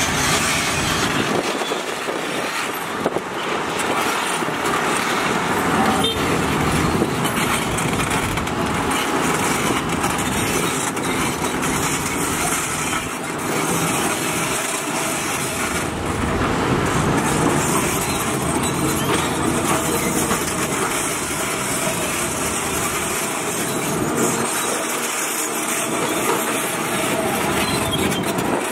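Heavy earthmoving machinery working: a steady, loud run of diesel engine noise and machine rumble, with no pauses.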